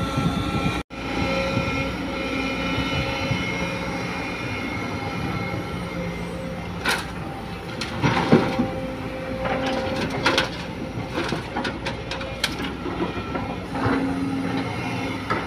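Sumitomo hydraulic excavator working at full power: the diesel engine and hydraulics run steadily with a held whine, and from about the middle there is a string of sharp metallic clanks and knocks.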